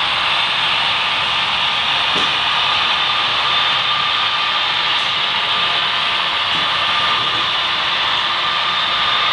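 Steady whir of a long HO-scale model freight train's cars rolling along the track, with a couple of faint clicks.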